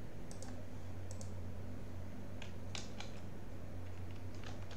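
Computer keyboard and mouse clicks, about nine short sharp clicks in small groups as code is selected, copied and pasted, over a steady low hum.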